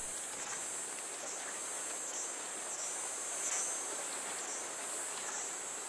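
Chorus of insects: a steady high-pitched buzz that swells slightly about every three-quarters of a second.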